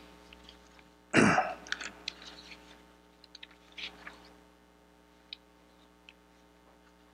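Sheets of paper being handled at a lectern: soft rustles and light clicks, with one louder short burst about a second in, over a faint steady hum.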